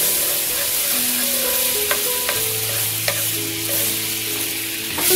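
Butter sizzling as it melts in a hot non-stick frying pan, stirred with a wooden spatula, with a few light clicks of the spatula against the pan.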